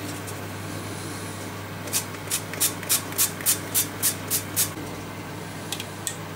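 Pump-action cooking-oil spray squirted onto a frying pan about ten times in quick succession, about four sprays a second, over a steady low hum.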